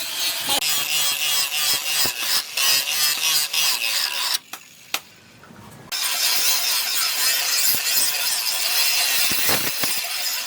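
Rasping strokes of a file or saw working the steel of a knife blank cut from a brake disc. It stops about four and a half seconds in, with one click in the pause, and starts again about a second and a half later.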